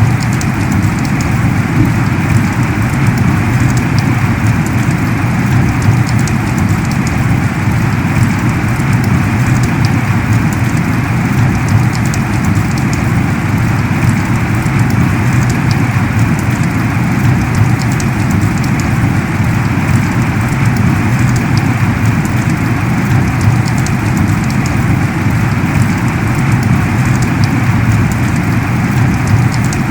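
Heavy rain pouring down steadily, a dense unbroken patter with countless small drop hits and no let-up.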